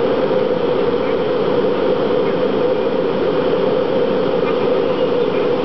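Steady drone of a jet airliner's engines and rushing air, heard from inside the cabin, with most of its weight in a low hum.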